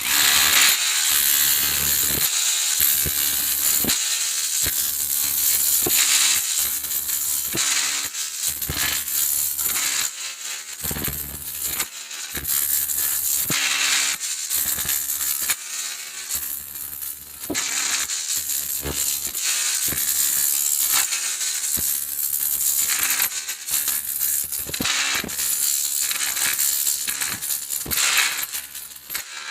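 Bauer cordless rotary hammer running in hammer action, its bit pounding into hard material with a loud, rapid metallic chatter, easing off briefly a few times before carrying on.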